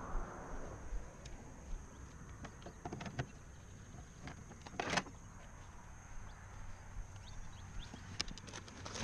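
Scattered clicks and knocks of fishing gear being handled on a hard plastic kayak, with one louder knock about five seconds in and a quick run of clicks near the end.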